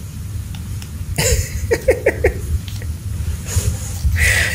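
Laughter: a quick run of short "ha" pulses, then a breathy laugh near the end, over a steady low hum.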